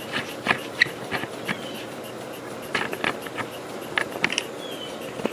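Irregular clicks, knocks and scrapes of a camera being handled and taken off its tripod.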